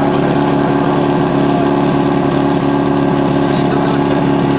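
Portable fire pump's engine idling steadily, warmed up and waiting for the attack to start.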